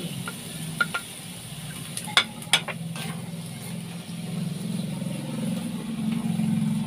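A spatula knocking against a plate and the rim of a wok as ingredients are scraped in: several sharp clicks, loudest a little after two seconds in. Then stir-frying string beans and squid in the wok, over a steady low hum.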